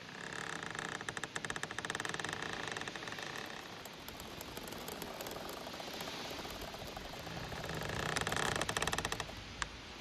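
Giant bamboo stems rubbing together as they sway in the wind, creaking in a rapid grating squeak: one long creak over the first few seconds and another near the end, with a steady rustle between and a single sharp click just before the end.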